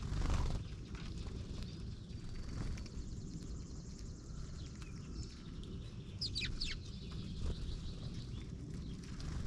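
Small birds at a feeder chirping: a few quick high chirps sweeping downward about six seconds in, with fainter thin calls earlier, over a steady low outdoor rumble.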